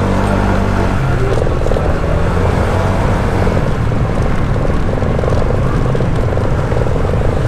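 Honda SH125i scooter's single-cylinder 125 cc four-stroke engine running steadily under way, a continuous fast-pulsing drone.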